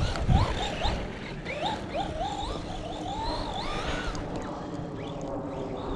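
Arrma Big Rock 3S's brushless electric motor whining, its pitch rising and falling in quick swells as the throttle is worked, fading out about four seconds in.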